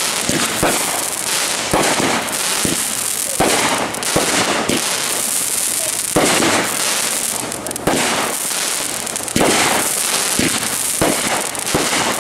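Aerial firework shells bursting in quick succession: many sharp bangs, sometimes several a second, over a continuous crackling hiss from the glittering stars.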